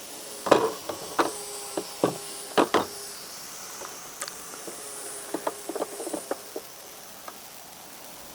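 Irregular clicks and knocks of hands and tools working at a BMW E90's tail light and its plastic connector and fittings: a few louder knocks in the first three seconds, then a quicker run of light clicks.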